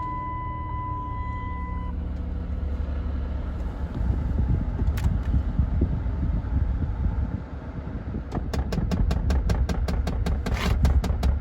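Minivan with its engine running, a steady low rumble that gets louder about four seconds in. A steady warning chime sounds for the first two seconds. From about eight seconds in comes a rapid, even ticking, about six ticks a second.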